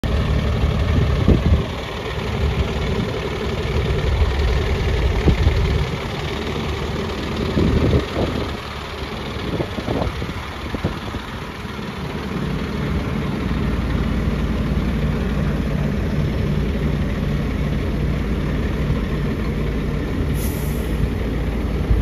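Volvo FL7 truck's six-cylinder diesel engine idling steadily, with a few dull knocks in the first half.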